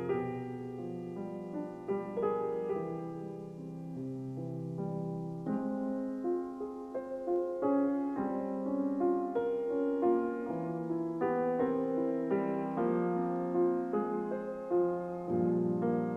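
Slow, gentle solo piano music: single melody notes ringing over held low chords, changing about once a second.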